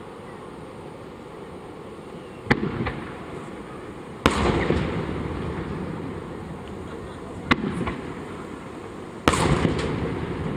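Aerial firework shells bursting: four sharp booms a couple of seconds apart. The bursts about four and nine seconds in are followed by a long rolling echo that slowly fades.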